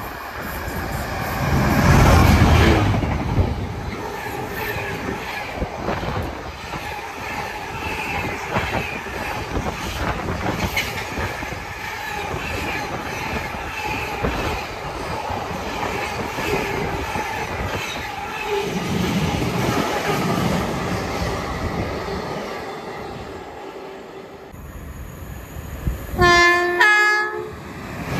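A freight train passes through at speed. The locomotive goes by loudest about two seconds in, then a long rake of empty container flat wagons rattles and clacks past over the rail joints. Near the end, a two-tone train horn sounds briefly as a Class 350 electric multiple unit runs in.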